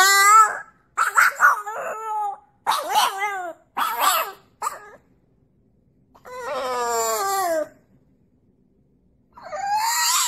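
French bulldog howling with its head thrown back: a string of short, wavering yowls, then a long falling howl about six seconds in and another beginning near the end.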